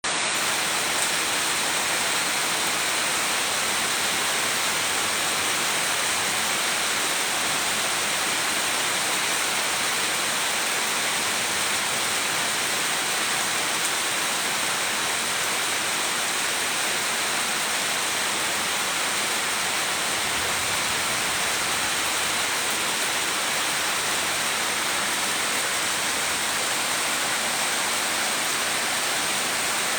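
Steady rain falling in a forest: an even, unbroken hiss.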